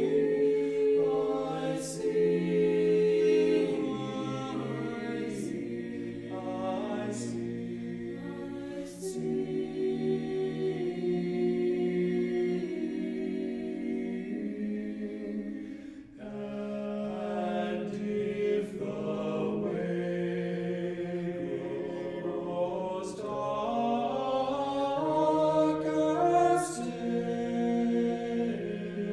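Mixed four-part choir (soprano, alto, tenor, bass) singing slow, sustained chords of a contemporary choral piece, with sharp 's' consonants cutting through now and then. The sound drops away briefly about halfway through, then the voices come back in and build.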